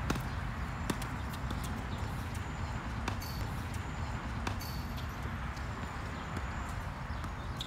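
Tennis ball being struck by racquets and bouncing on a hard court during a rally: a string of sharp pops, the loudest right at the start and about a second in, over a steady low background noise.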